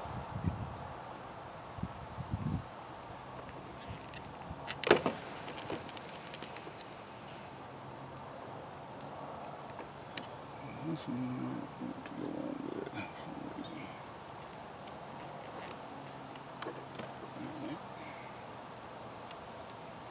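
Steady high-pitched chirring of insects. Over it come scattered clicks and knocks as hands fit a battery and its connectors in a gate opener's plastic control box; the loudest is a sharp click about five seconds in.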